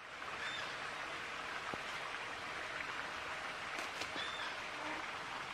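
Steady, even outdoor hiss, with a few faint, brief high chirps.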